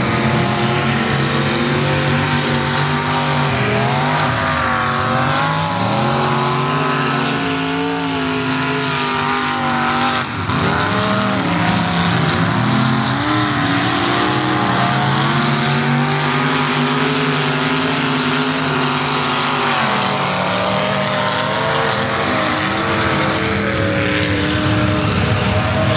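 Off-road truck engines, a Ford Bronco's among them, revving hard. The pitch climbs and drops again and again, with a brief dip about ten seconds in.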